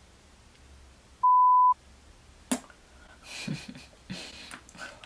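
Censor bleep: a single steady high beep about half a second long, dubbed over the sound track with the other sound cut out beneath it. A sharp click follows, then a few short rustles.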